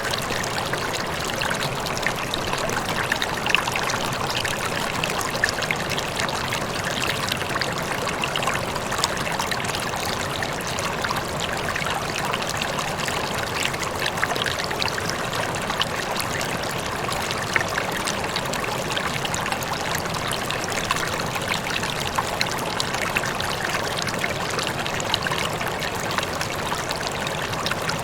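Rippling, trickling water of a small stream, a steady stream of small splashes and bubbles without pause.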